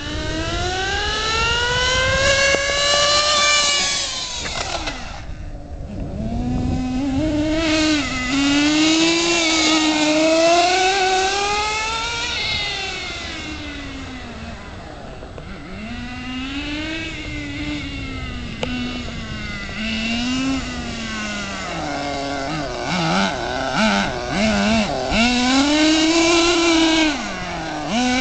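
Redcat Racing Twister LT 1:8-scale RC car's two-stroke nitro engine running as the car is driven, its pitch climbing and falling over and over as it speeds up, passes and slows.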